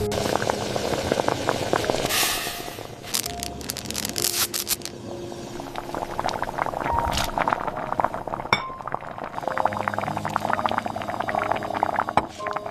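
Soft background music with many light clinking and tapping sounds over it.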